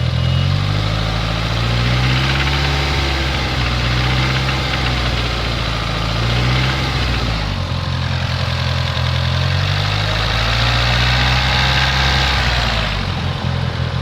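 A DSM's engine revved up and let back down twice, with the pitch climbing and falling each time. It is running with a rod knock, the sign of a worn connecting-rod bearing.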